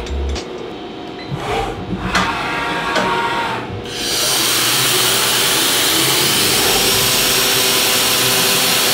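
A few light clinks in the first seconds, then about four seconds in the mist-coolant nozzle on a CNC mill starts spraying lubricant at the end mill with a loud, steady air hiss. It is heavy enough to be called too much lube.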